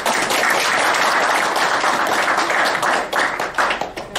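Audience applauding: dense clapping that starts just before and thins out near the end.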